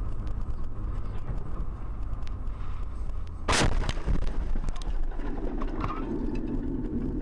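Inside a moving car, steady road and engine hum with a faint whine, then about three and a half seconds in a single loud crack as snow and ice thrown by a passing snowplow smash into the windshield and shatter it. Scattered crackling and a rushing noise follow.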